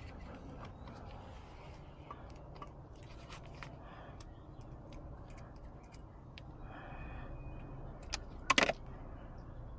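Light clicks and scrapes of small car-door parts being handled, then a couple of sharp clacks about eight and a half seconds in.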